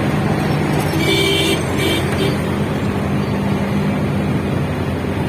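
Vehicle engine running steadily with road noise, heard while riding along. About a second in, two short high-pitched tones sound, one after the other.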